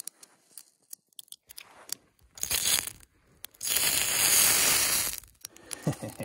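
Two whooshing bursts of flame flaring up, a short one about two seconds in and a longer, louder one about a second later, with scattered small clicks and crackles before them.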